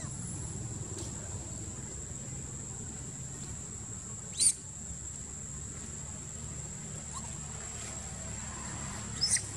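Long-tailed macaque giving short, high squeals: one sharp squeal about halfway through and two quick ones near the end. A steady high-pitched insect drone runs underneath.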